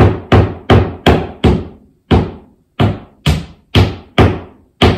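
Hammer blows driving a fastener up into the garage ceiling: a steady run of about eleven sharp knocks, two to three a second, each ringing briefly.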